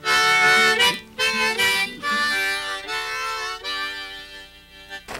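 Harmonica playing a tune in chords, several notes sounding together in short phrases, stopping abruptly near the end.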